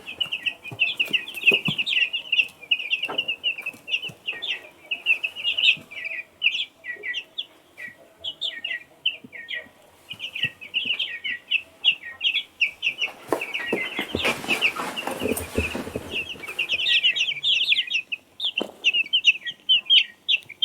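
Chickens calling: a dense, continuous chatter of many short, high peeps. A rushing noise joins in for a few seconds around the middle.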